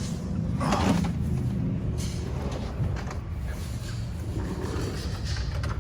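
Scraping, handling noise and a few small clicks from hands working a wiring harness connector under a pickup, over a steady low drone. The loudest scrape comes about a second in.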